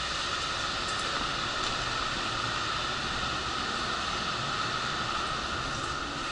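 Steady, even rushing noise with a faint constant hum.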